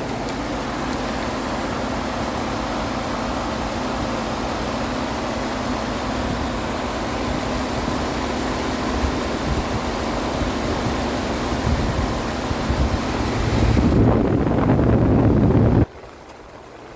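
Ford 5.0 L Coyote V8 idling steadily with its new serpentine belt, tensioner and idler pulley, run to check the belt after the replacement. The engine noise grows louder near the end, then cuts off suddenly to a quieter hiss.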